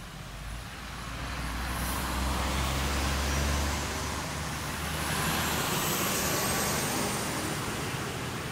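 A motor vehicle passing close by: a low engine rumble builds over the first few seconds and fades after about five, giving way to a hiss with a faint high whine near the end.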